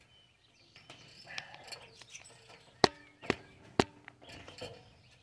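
Three sharp metallic clanks about half a second apart, each ringing briefly: shoes stepping onto the rungs of an aluminium extension ladder as a man climbs it.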